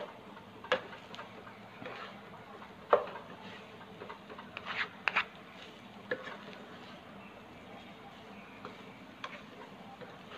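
Spatulas, one of them wooden, stirring and tossing fried rice in a nonstick pan: irregular taps and scrapes against the pan, more frequent and louder in the first half.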